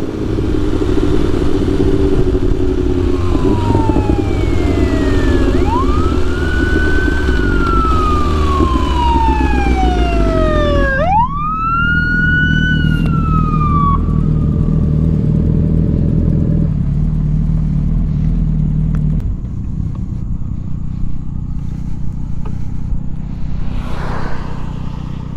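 Police siren wailing, sweeping slowly up and down several times from a few seconds in until about 14 seconds, over the steady running of a sportbike's engine. About 11 seconds in, the engine note drops lower as the bike slows.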